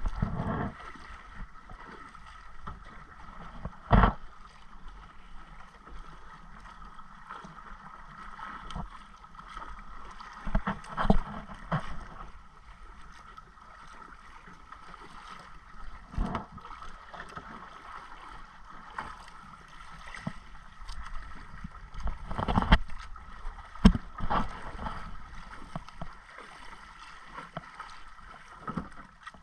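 Sea water slapping and sloshing against a small outrigger canoe, with several sharp splashes and knocks, the loudest about four seconds in and again near twenty-four seconds, over a faint steady hum.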